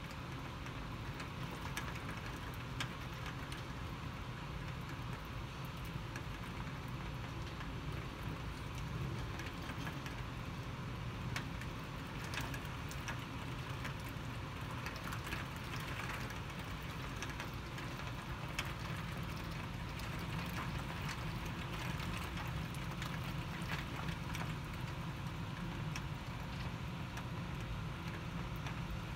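Heavy rain falling steadily, with scattered sharp ticks of drops striking close by.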